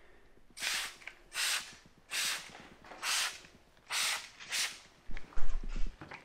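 Microfiber towel wiping the ceramic coating over a jet ski's painted hull: six short swishing strokes, one roughly every second. A few sharp knocks near the end.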